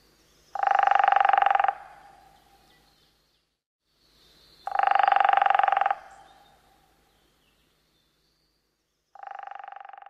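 Hairy woodpecker drumming on a tree. There are two rapid rolls of taps, each a little over a second long and about three seconds apart, then a fainter third roll starts near the end. Faint high bird calls sit in the background.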